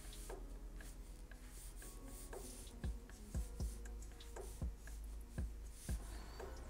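Black felt-tip marker drawing a series of short strokes on paper, one texture line after another, each a brief scratch, irregularly spaced.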